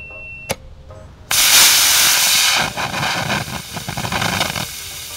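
B6-4 model rocket motor firing in a static clamp. A sharp click about half a second in, then the motor lights with a sudden loud rushing hiss that is strongest for about a second. The hiss then drops to a weaker, rougher hiss as the motor pours out smoke, and dies away near the end.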